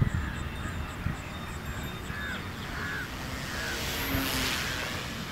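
Electric foam RC model plane (a P-51 Mustang) flying past close overhead, its motor and propeller whine swelling briefly about four seconds in, then fading.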